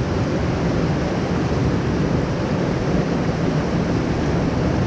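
Creek water rushing steadily, with wind buffeting the microphone as a low rumble.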